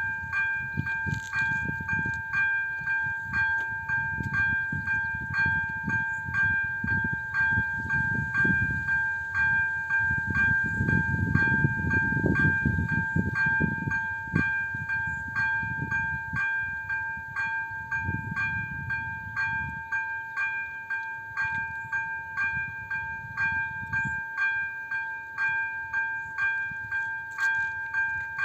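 Electronic warning bell of a Czech AŽD 97 level crossing ringing continuously as an even, rapid ding on a fixed pitch, signalling that a train is approaching. A low rumble swells and fades underneath, strongest midway through.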